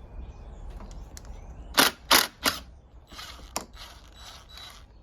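Ratchet wrench clicking in short strokes: three sharp, loud ones about two seconds in, then a quicker run of softer strokes.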